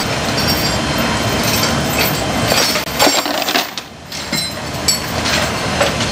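Heavy steel tie-down chains clanking and rattling against a metal aircraft cargo floor as they are worked loose from a tank, over a steady loud background noise. The background drops away briefly about halfway through.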